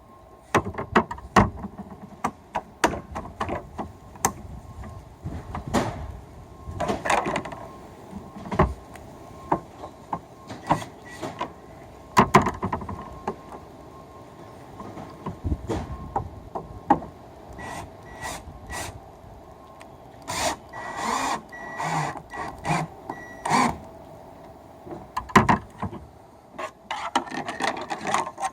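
Irregular knocks, clicks and rubbing of roof rack parts being handled and fitted by hand, with a faint steady hum underneath.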